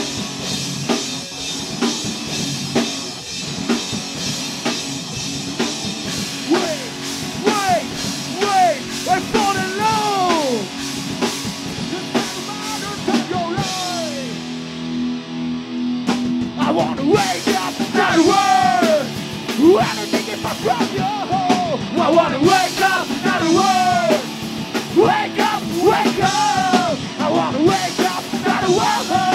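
Rock band playing live: drum kit, electric guitars and a sung lead vocal. Near the middle the drums stop for about two seconds, leaving a held guitar chord, then the full band comes back in.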